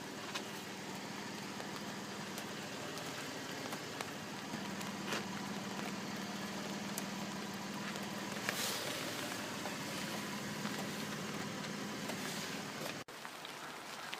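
Vehicle engine idling: a steady low hum under an even hiss, with a few faint clicks. It cuts off abruptly near the end.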